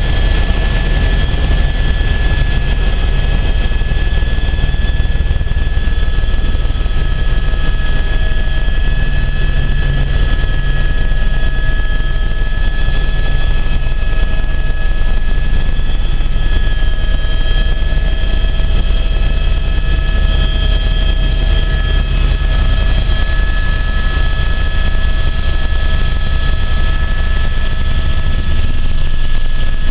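Helicopter in steady flight: a constant low rotor drone with several steady high-pitched whines over it.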